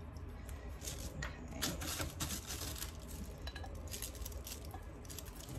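Hands working with small craft materials: irregular light clicks and crackles, thickest in the first half.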